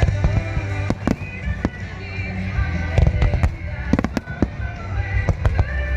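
Starmine fireworks: many shells bursting in quick succession, sharp bangs in clusters, over a sung pop ballad that the display is set to.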